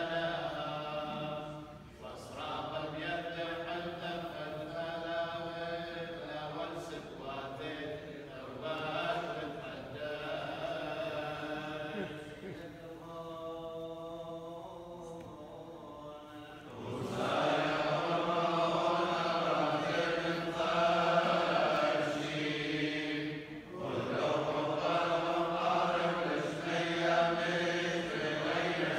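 Male clergy chanting Chaldean funeral prayers in long, held melodic lines. The chant thins and drops in level just past the middle, then swells louder and fuller as more voices come in.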